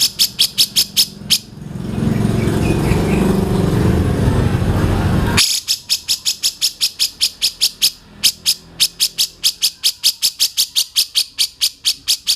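A rapid, even train of sharp high chirps, about five a second, as played on a songbird tutoring recording; it breaks off about a second and a half in for roughly four seconds of loud low rumbling noise, then resumes.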